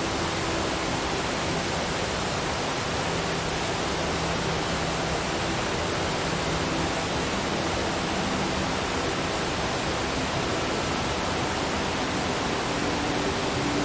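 Waterfall: falling water rushing in a steady, unbroken roar of noise.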